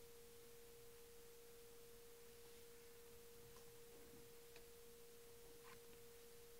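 Near silence: room tone with a faint steady single-pitched tone in the middle register, and a few very faint ticks from about halfway on.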